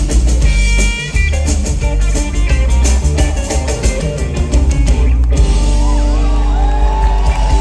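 Live rock band playing, loud and bass-heavy: hollow-body electric guitar over a drum kit, with a long held note that slides upward near the end.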